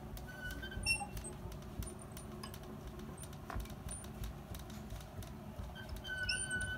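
Short high squeaks and a few light clicks over a low room rumble as a heavy studio door is opened and someone steps through. The squeaks come a little under a second in and again near the end.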